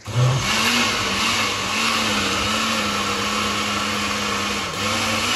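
Countertop blender starting up abruptly and running at speed, puréeing cooked tomato sauce; its motor hum wavers a little and dips once briefly near the end.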